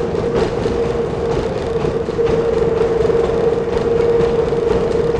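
Kiha 10 railbus running along the line, heard from on board: a steady engine drone with a constant humming tone over the low rumble of wheels on rail, growing slightly louder about two seconds in.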